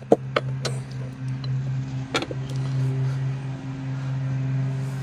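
A few sharp clicks and knocks from metal tire tools prying a motorcycle tire's bead over the wheel rim, over a steady low hum.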